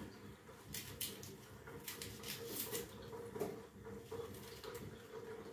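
Faint patter and a few light clicks of hands peeling and rinsing an onion under a thin trickle from a kitchen tap.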